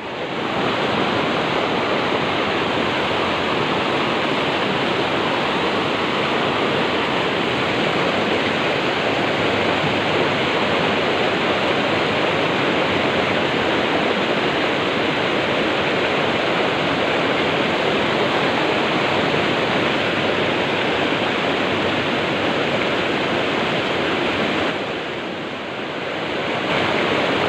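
Water pouring over a small concrete weir: a steady, loud rush of falling water, which dips briefly near the end.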